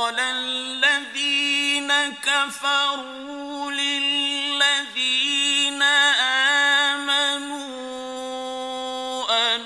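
A man's voice reciting the Quran in the slow, melodic mujawwad style: one long drawn-out phrase held on a steady pitch with wavering ornaments, breaking briefly near the end.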